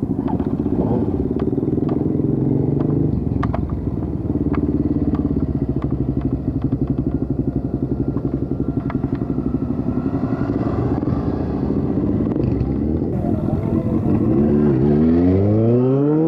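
Motorcycle engine running at low revs with a pulsing, throbbing beat, then revving up with a steeply rising pitch near the end as it accelerates away.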